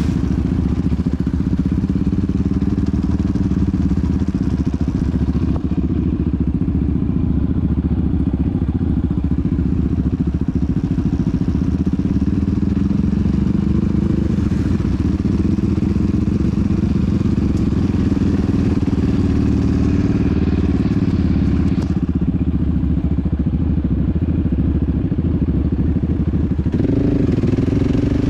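Yamaha Raptor 700R quad's single-cylinder four-stroke engine running while riding along a dirt track, heard from on board. The engine note stays mostly steady and shifts with the throttle, rising near the end.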